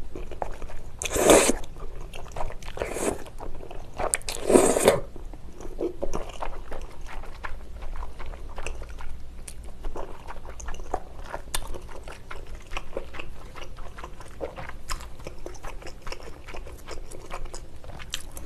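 Close-miked eating of spicy tteokbokki with wide Chinese glass noodles. Two loud slurps of noodles come about one and four and a half seconds in. Then steady wet chewing and mouth clicks follow.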